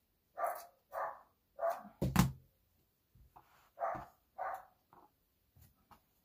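A dog barking in short single barks, three in the first two seconds and two more about four seconds in. A sharp knock about two seconds in is the loudest sound.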